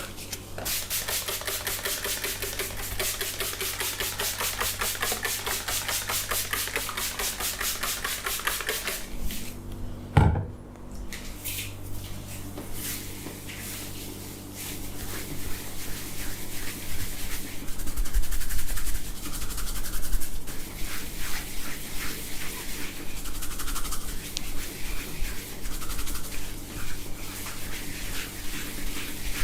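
Hands rubbing and working over a man's scalp and hair in a head massage. For the first nine seconds or so the strokes are fast and even, several a second; then comes a single sharp knock, followed by slower, irregular rubbing and patting.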